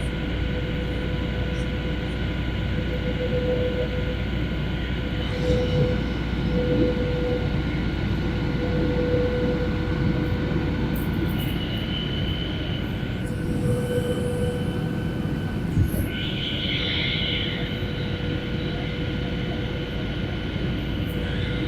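Steady cabin noise of an airliner in flight: a constant engine drone and rush of air, with a few steady whining tones running through it.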